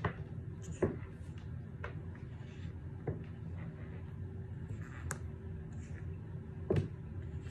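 A handful of light taps and knocks from a kitten playing with a string wand toy on a wooden floor, the first as it brushes right against the phone, over a steady low room hum.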